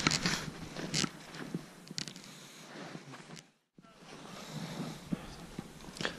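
Faint rustling of clothing and gear with a few sharp clicks, as a gloved hand handles an ice-fishing rod; the sound cuts out completely for a moment about three and a half seconds in.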